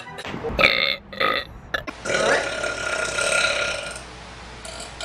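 A woman burping: two short burps, then one long drawn-out burp lasting about two seconds, and another beginning near the end.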